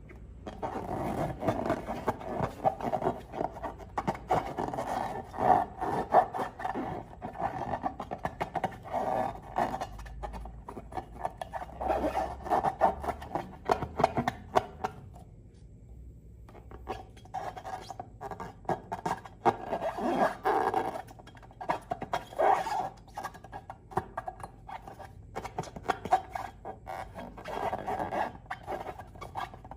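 Slime being squished and mixed, with dense, irregular sticky crackling and squelching that pauses for about two seconds halfway through.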